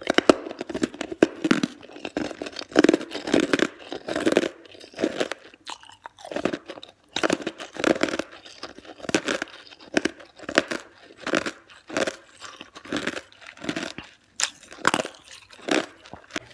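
Close-up crunching of ice being bitten and chewed, a steady run of sharp crunches about one to two a second.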